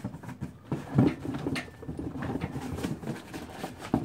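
Handling noise around a scooter engine's cylinder base: scattered light clicks, rattles and rustles of the cam chain and parts being worked by a gloved hand, with a few short knocks, the loudest about a second in.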